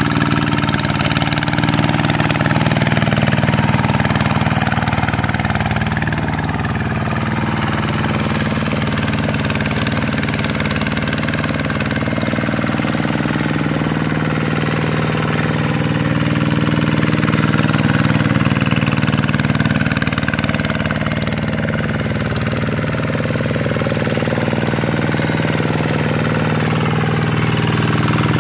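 Kubota RV125-2 single-cylinder diesel engine of a two-wheel hand tractor running steadily under load as the tractor churns through flooded paddy mud.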